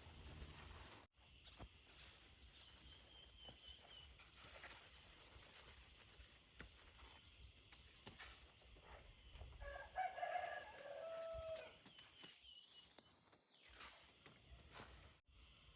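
A rooster crowing once, faintly, about ten seconds in, over a quiet background with a couple of thin high chirps.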